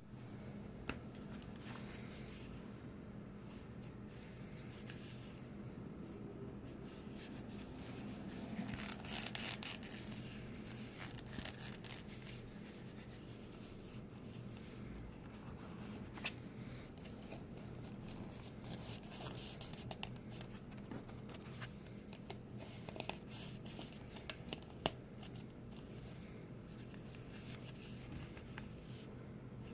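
Handmade leather wallet being flexed and squeezed in the hands: the leather creaks and crinkles in irregular rustles with small clicks, busiest about a third of the way in and again in the later part. A steady low hum runs underneath.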